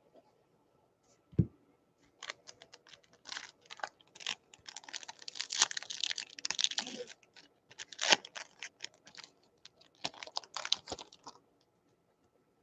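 A single soft thump, then about nine seconds of crackling, crinkling rustles as a baseball card pack's wrapper is torn open and handled.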